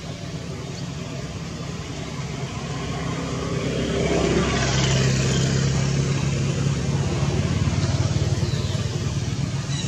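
A motor vehicle engine running, growing louder over the first half and then holding steady.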